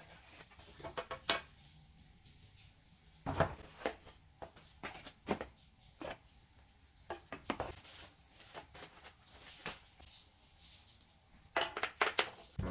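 Scattered light clicks and knocks at irregular intervals, with a quicker cluster near the end.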